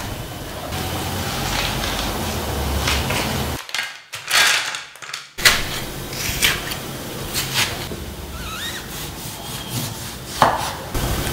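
Food-prep sounds on a wooden chopping board: scattered scrapes and knocks of a metal spoon and a kitchen knife working through watermelon and limes, over a steady low hum.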